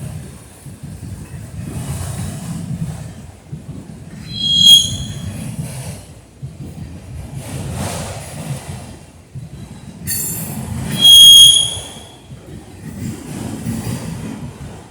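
Freight train cars rolling past with a steady low rumble. Twice the wheel flanges squeal, high-pitched: briefly about four seconds in, then for nearly two seconds about ten seconds in.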